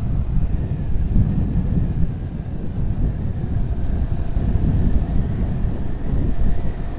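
Wind buffeting the microphone of a motorcycle riding along at road speed, a steady low rumble, with the engine's faint hum running underneath.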